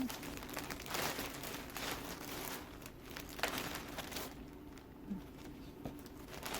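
Plastic bags of small plush toys crinkling as they are handled, in irregular bursts of rustling that ease off for a while past the middle.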